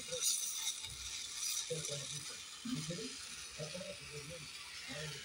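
Gas torch flame hissing steadily while an aluminium thermostat housing is welded with a filler rod. Under it, an irregular low rattling clatter comes and goes every second or so.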